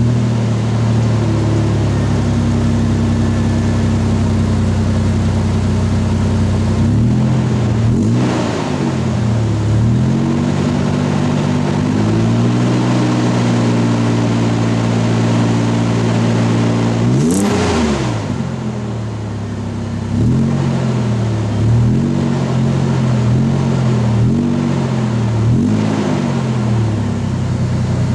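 Toyota 3.4L V6 (5VZ-FE) running through a 14-inch Magnaflow-style clone muffler, heard at the tailpipe. It idles steadily just after start-up, then is revved in neutral: a few short revs, a longer held rev, one sharp high rev just past the middle, and a run of quick throttle blips near the end.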